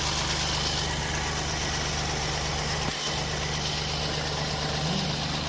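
Mahindra Bolero's diesel engine idling steadily.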